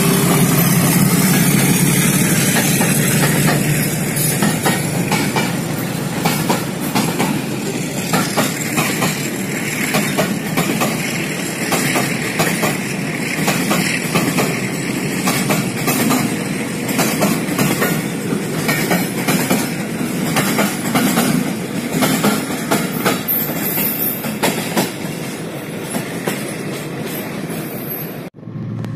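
Freight train passing close by: a diesel locomotive's engine runs loud in the first few seconds, then a long string of tank wagons follows, their wheels clacking steadily over the rail joints. The sound cuts off abruptly near the end.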